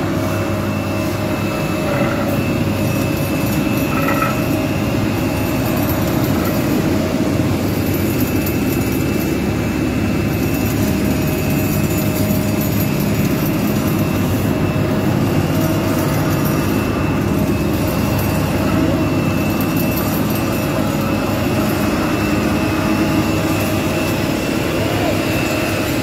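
Dynapac SD2500WS asphalt paver running steadily while laying asphalt, its diesel engine a constant loud drone with a steady high-pitched whine over it.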